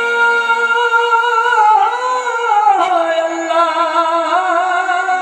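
Live qawwali singing: a male voice holds a long wordless note, then from about two seconds in ornaments it with wavering turns that step down in pitch.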